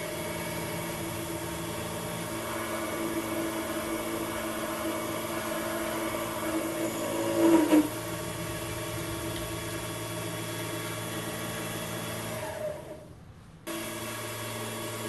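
A small belt-driven drilling spindle on a lathe's toolpost runs with a steady motor hum and whine as it drills a 2.5 mm hole into a brass part. It briefly gets louder about eight seconds in and drops away for about a second near the end before running on.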